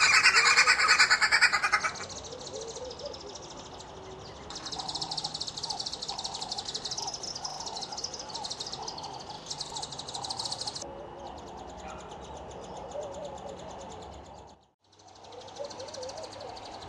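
Red-billed wood hoopoes calling at the nest hole: a loud, rapid chattering for about the first two seconds, then a nestling's softer, repeated wavering begging calls, with high rasping trills over them for several seconds. The sound drops out briefly near the end.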